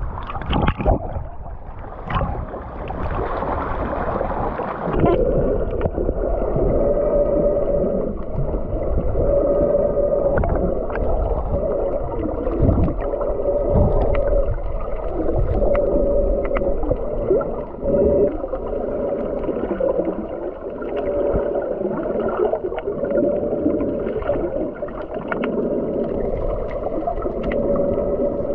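Muffled underwater sound recorded by a camera held in the sea. Splashing and sloshing at the surface for the first five seconds or so, then, once under water, a steady muffled drone that swells and fades, with scattered clicks and bubbles.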